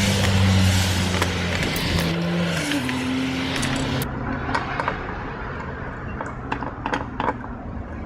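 A car passing close by, its engine note shifting as it goes. About halfway through it fades and a run of small sharp metallic clicks follows: screws and the metal hard drive case being handled.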